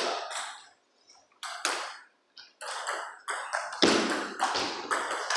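Table tennis balls clicking off rackets and bouncing on the tables: a quick, irregular run of sharp taps that starts about a second and a half in, with rallies on more than one table overlapping.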